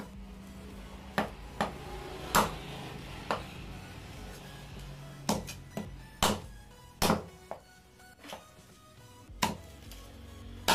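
A large knife chopping through a katla fish head on a wooden tree-trunk block: about a dozen sharp, irregular chops. Background music plays underneath.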